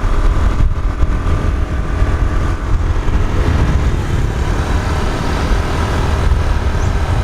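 Motor scooter riding along, its small engine running steadily under a heavy low rumble of wind on the microphone.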